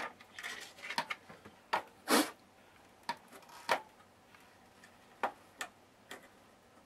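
Irregular small clicks and a few short scrapes of parts being handled inside an open Icom IC-R7100 receiver. The loudest is a brief scrape about two seconds in.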